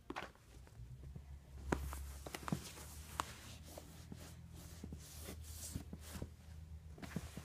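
Cloth wiping and rubbing over a leather saddle, with scattered small clicks and taps of handling.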